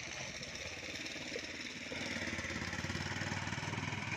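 A vehicle engine running steadily, growing louder about two seconds in.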